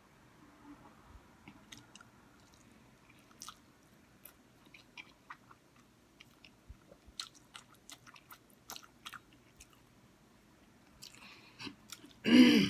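Close-up mouth sounds of a person eating spicy instant noodles: chewing with a scatter of small wet smacks and clicks. Near the end, a short loud sound from the eater's voice.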